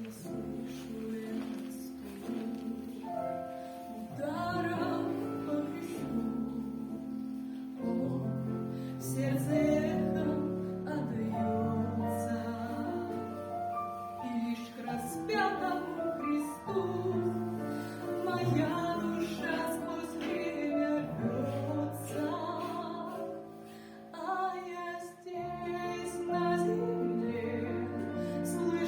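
A song: a singing voice over sustained instrumental accompaniment, starting after a short instrumental opening.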